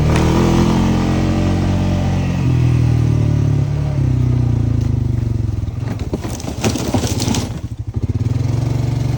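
Honda FourTrax ATV engine running steadily while riding. From about five and a half seconds in the revs drop and the engine note breaks into separate pulses with some clatter for a couple of seconds, then the steady running picks back up near the end.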